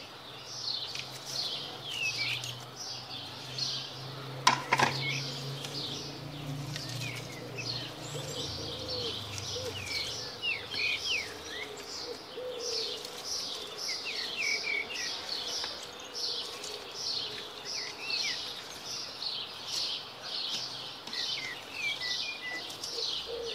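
Small birds chirping over and over, several short high chirps a second, with a few whistled notes among them. A low hum lasts for the first several seconds, and a single sharp knock comes about four and a half seconds in.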